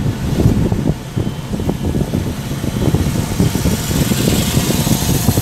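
Car on the move, a steady rough road-and-engine rumble with a hiss that grows louder near the end.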